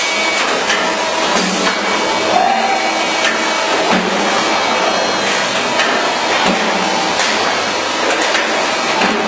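Automatic sandpaper disc-cutting machine running: a steady mechanical clatter and hiss, with sharp knocks from the cutting press roughly once a second.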